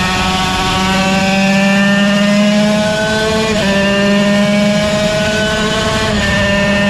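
Yamaha TZ125's 125 cc two-stroke single-cylinder racing engine at full throttle, its pitch climbing steadily with brief breaks at gear changes about a second in, at about three and a half seconds, and near the end.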